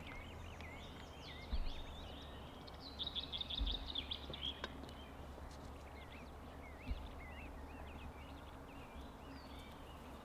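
Several small birds chirping and twittering, with a dense burst of chatter about three seconds in. Underneath is a low steady rumble, with a few dull thumps.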